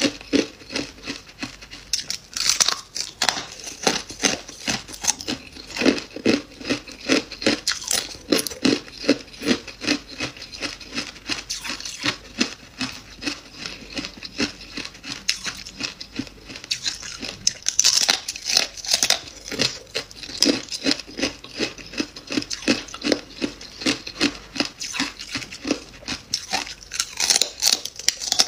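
Freezer frost being bitten and chewed: a steady run of crisp crunches, several a second.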